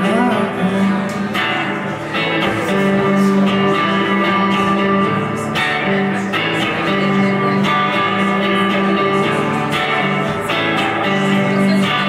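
Stratocaster-style electric guitar playing an instrumental passage, with chords ringing and changing about once a second.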